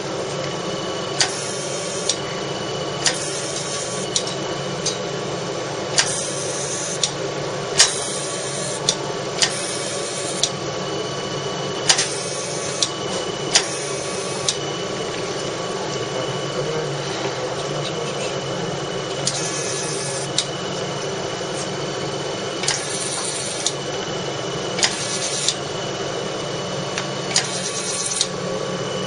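CO2 fractional laser system running with a steady machine hum, its handpiece firing about fifteen irregular scan bursts, each a click followed by a hissing buzz lasting up to a second.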